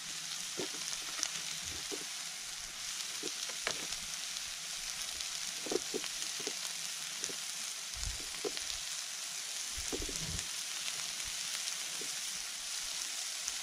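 Sliced onions sizzling steadily in oil in a frying pan over a small wood-fired stove. A scatter of short, light knocks and clacks runs through it as the wooden base under the stove is shifted to level the unsteady pan.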